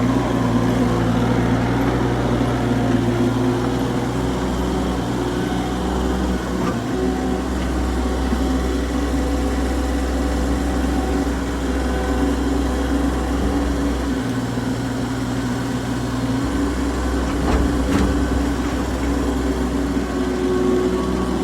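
Kubota skid steer loader's engine running steadily while the machine works, its low drone shifting a few times as the load changes.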